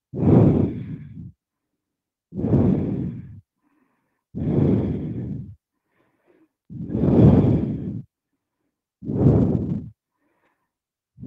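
A woman's slow, deep breaths close to the microphone, five of them about two seconds apart, each a rushing sigh-like breath with silence between.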